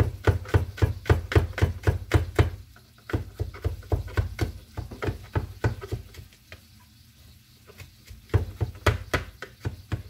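Kitchen knife finely chopping garlic on a cutting board: quick runs of knocks, about five a second, with a pause of a couple of seconds in the middle and another run near the end.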